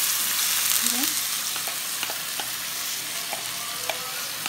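Hot oil sizzling in a pan as washed rice is spooned in over fried vermicelli, the sizzle easing off slightly as the rice settles. A spoon scrapes and clicks lightly against the bowl and pan.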